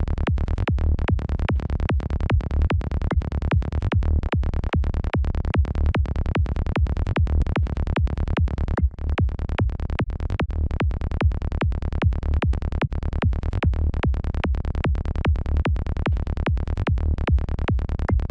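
Synthesized psytrance-style kick and bass loop in D from the KickNBassGel synth, playing a fast, steady pulse with the weight in the deep bass, the bass ducked under the kick by a high-pass sidechain. The loop drops out for a moment about nine seconds in.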